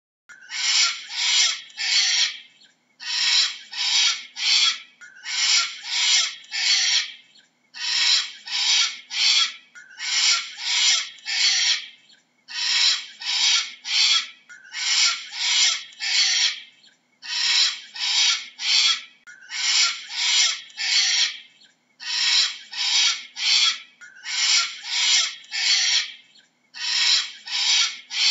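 Cockatoo calling: harsh screeches in quick runs of three or four, a new run about every two seconds, repeating steadily.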